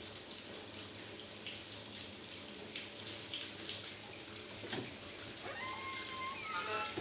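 Bathtub faucet running steadily. From about five and a half seconds in, a high wavering squeal with several pitches joins it and bends downward.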